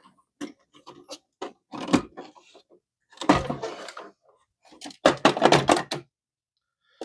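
Hard plastic toy parts of a 1994 Bandai Red Dragon Thunderzord clicking, knocking and scraping as the toy is handled and pieces are fitted into it, in several short clusters with brief pauses between; the busiest run of clicks comes after about five seconds.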